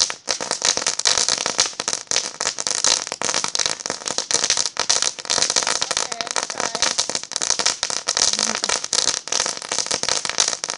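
Disco fountain firework burning with a dense, continuous crackle of rapid pops.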